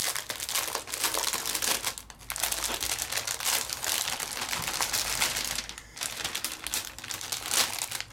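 Crinkling and rustling of packaging as a bundle of craft supplies is unpacked and handled, with short lulls about two seconds in and again near six seconds.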